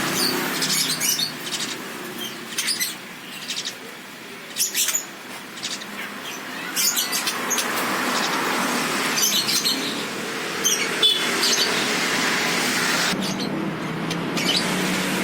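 Caged songbirds giving many short, sharp high chirps and rattles, among them a white-rumped shama (murai batu) making its rattling 'ketrekan' call, over steady background noise.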